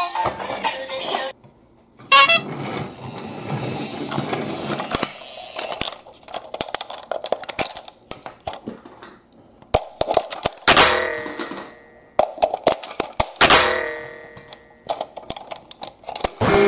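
Clicks and knocks of a plastic battery-operated toy train being handled, its battery compartment opened and the cover snapped back on. A short horn-like sound comes about two seconds in.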